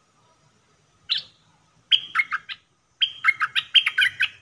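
Caged decoy bulbul (merbah lekir) singing: one sharp note about a second in, then a short burst of quick chattering notes and a longer, livelier phrase near the end.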